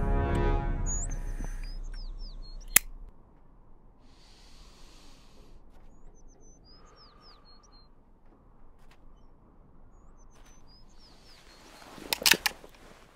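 A music cue fading out, then a flip-top metal lighter's lid snapping shut with one sharp click. Small birds chirp in short descending whistles every few seconds, and near the end a revolver is cocked: a quick cluster of loud metallic clicks.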